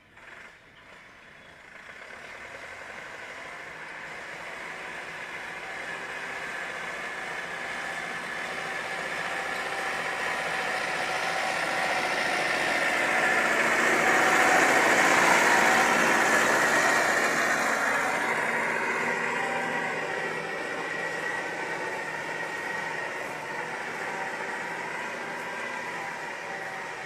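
Massey Ferguson 365 tractor's diesel engine working under load as it approaches, is loudest about halfway through, then moves away.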